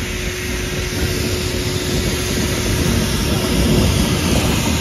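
Small saddle-tank steam locomotive hauling wooden carriages past, a steady rumble that grows louder as the train draws near.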